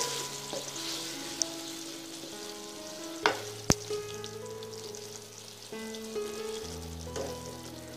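A wooden spatula stirring a watery vegetable curry in a wok, the liquid sizzling on the heat, with two sharp knocks of the spatula against the pan a little over three seconds in. Soft background music plays underneath.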